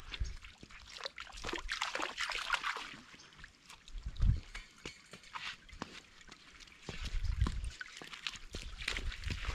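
Shallow creek water trickling and splashing around stepping stones as someone steps across. Dull low thumps come about four seconds in and again around seven seconds.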